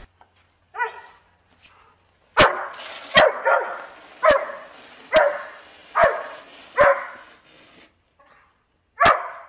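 A dog barking in play at a snow shovel as it is pushed through the snow. There is one bark about a second in, then a run of loud barks about one a second, and a last one near the end.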